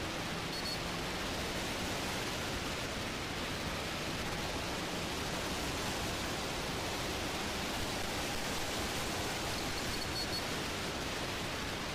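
Steady rush of wind buffeting the microphone while riding a Hero XPulse 200T motorcycle at road speed.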